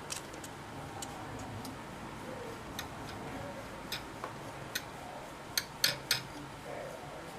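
Irregular light clicks and ticks from hand-cleaning the video head drum of a Sony UVW-1700G Betacam deck, over a low steady hum. About ten sharp clicks come at uneven gaps, several close together near the end.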